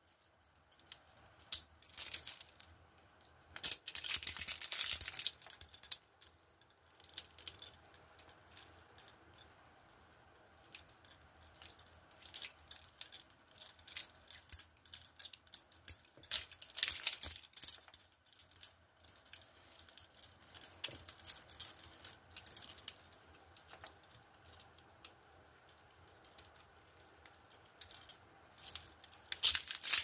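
Several pairs of steel handcuffs and their chains clinking and rattling as the locks are worked with a pick. The sound is made of irregular small clicks, with louder bursts of jangling about four seconds in, around sixteen seconds and near the end.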